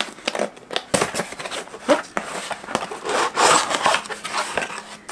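A cardboard book subscription box being pulled open by hand: scraping, tearing and rustling of cardboard and paper packaging, with a loud burst of rustling about three seconds in.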